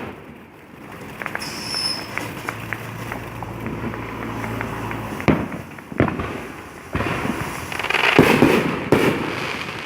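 Fireworks going off: a run of small crackling pops, then several sharp bangs in the second half, with a dense burst of crackling about eight seconds in.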